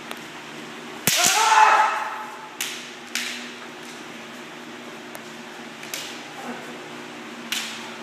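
Kendo sparring with bamboo shinai: a sharp shinai strike about a second in with a loud kiai shout held for most of a second, then several more sharp shinai clacks spread over the following seconds.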